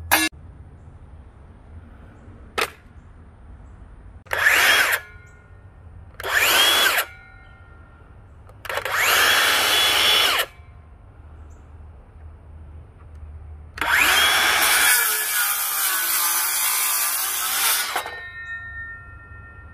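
DeWalt DCS565 20V brushless 6-1/2-inch circular saw, triggered three times in free air: each time the blade whines up to a steady speed for a second or two and winds down. About fourteen seconds in it spins up again and cuts through a wooden board for about three seconds, then winds down. A sharp click sounds at the start.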